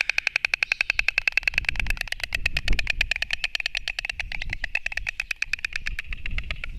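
White storks clattering their bills: a long, fast run of sharp wooden clapping at about a dozen claps a second, stopping just before the end.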